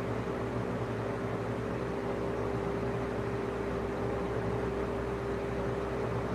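Steady background hum with one constant tone held throughout, like an appliance or fan running.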